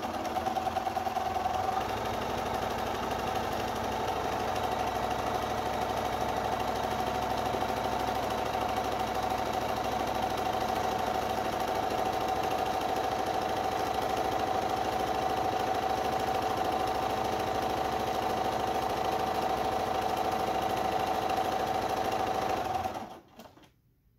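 Sewing machine running steadily at speed, the needle stitching rapidly during free-motion quilting as the fabric is moved by hand; it stops near the end.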